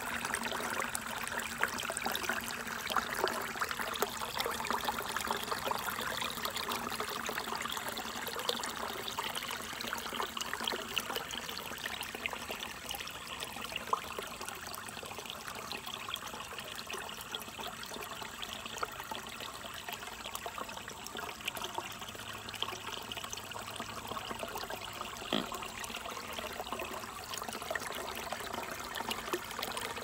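Small rocky stream running, water pouring in a little cascade over rocks into a shallow pool: a steady splashing trickle.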